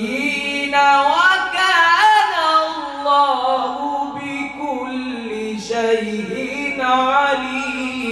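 A young man reciting the Qur'an in Arabic in the melodic, sung style of tilawat: one unaccompanied male voice in long held phrases that glide up and down in pitch.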